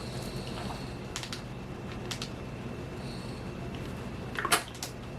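A few short, sharp clicks and light knocks of small objects being handled, the loudest about four and a half seconds in, over the steady hum of an air conditioner.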